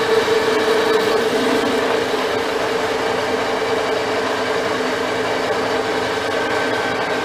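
Metal lathe running steadily while turning a round steel bar, a steady machine hum with a strong whining tone over the noise of the cut.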